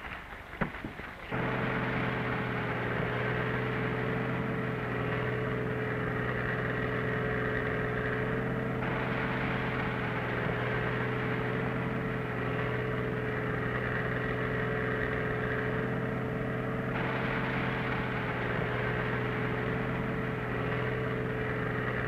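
Red two-row mechanical corn picker and its engine running steadily while harvesting standing corn: an even machine drone at a constant pitch that starts suddenly about a second in.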